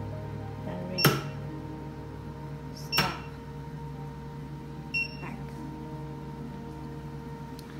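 Touchscreen control panel of a picosecond laser machine beeping at key presses: a short high beep about five seconds in, and two sharp clicks about a second in and about three seconds in, the first with a beep. A steady low hum runs underneath.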